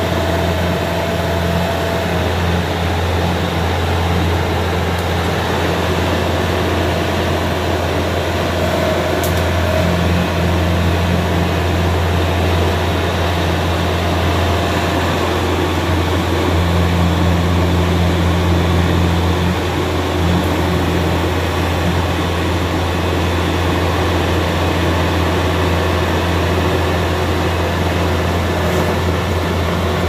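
Yanmar AW82V combine harvester's diesel engine running steadily as the machine creeps along on its crawler tracks, a little louder about halfway through.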